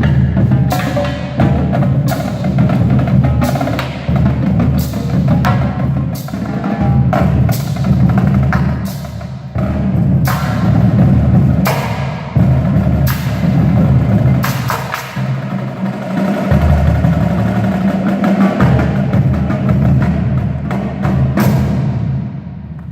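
Percussion ensemble performing: many sharp drum strikes over sustained low tones.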